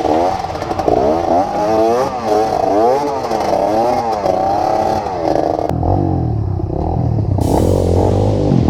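Off-road trail motorcycle engine revved hard over and over on a hill climb, its pitch rising and falling about every half second. About six seconds in the sound changes to a lower, steadier drone.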